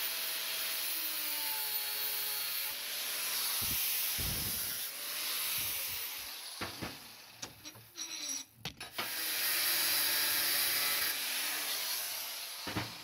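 Steel square tube being cut in a bench vise: a continuous rasping cutting noise that swells and fades, broken in the middle by a few clicks and knocks before the cutting resumes.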